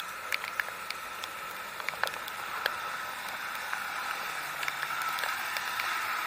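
Heavy rain falling: a steady hiss with many scattered sharp ticks of drops striking nearby surfaces.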